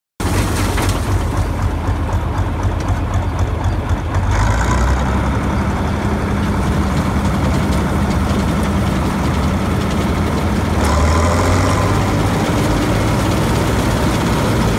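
Bizon combine harvester's diesel engine running steadily, heard from on the machine beside the engine cover. The engine note shifts slightly about four seconds in and again about eleven seconds in.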